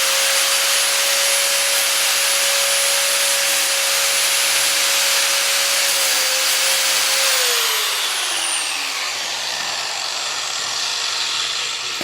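Angle grinder running with a steady high whine and a harsh grinding hiss as its disc grinds an iPhone 6's aluminium casing. About seven seconds in, the grinder is switched off: the whine falls steadily in pitch as the disc spins down, and the hiss fades away over the following seconds.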